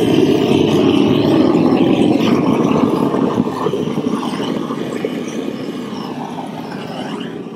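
Handheld gas roofing torch burning with a steady flame, heating peel-and-stick roofing membrane at a curb corner so it melts and seals. It grows gradually quieter over the second half.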